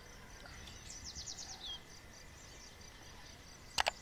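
A small bird gives a quick run of high chirps about a second in, ending in a falling note, over a faint steady high insect trill. Near the end come two sharp clicks in quick succession, the loudest sounds.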